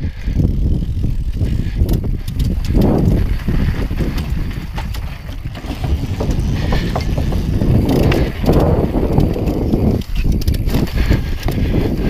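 Mountain bike ridden fast downhill: a continuous low rumble of tyres on grass and dirt, with the chain and frame rattling over bumps. About halfway through the tyres clatter across the boards of a wooden bridge.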